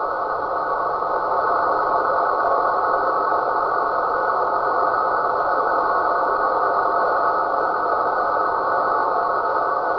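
Radio receiver output: a steady rushing noise held in a narrow band, with a faint steady high tone above it, the sound nicknamed the 'snoring sasquatch'.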